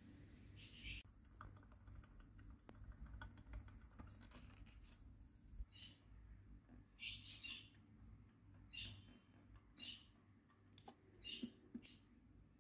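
Faint bird chirps, short high calls about once a second from about six seconds in, after a quick run of faint ticking clicks in the first few seconds.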